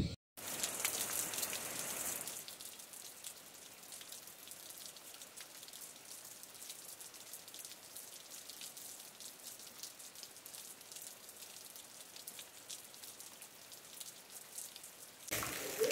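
Rain falling steadily: a soft, even hiss of drops with many small ticks, a little louder for the first two seconds.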